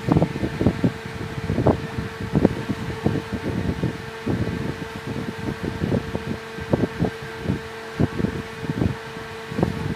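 A fan running with one steady hum, under frequent irregular low thumps and rumbles.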